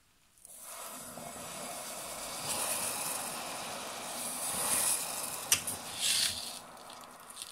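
Caustic soda (sodium hydroxide) spooned into a glass jar of hot water, hissing steadily as it pours in. There is one sharp tap about five and a half seconds in.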